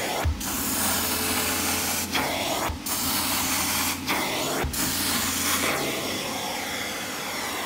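A carpet cleaning machine's vacuum motor runs steadily, with the hiss of suction through a 7-inch stair tool as it extracts water from stair carpet. The hiss dips briefly every second or two as the tool lifts off, with a low knock as it is set back down.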